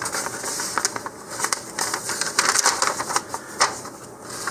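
Folded paper instruction sheet being unfolded and handled, rustling and crackling in a quick, irregular run of small clicks.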